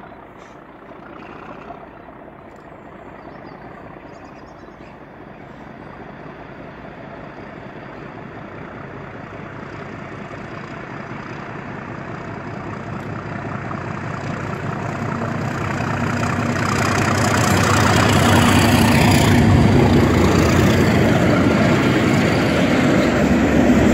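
Class 37 diesel locomotives, English Electric V12 engines, approaching on a train, their engine note growing steadily louder over about twenty seconds and loudest near the end, with a low steady hum.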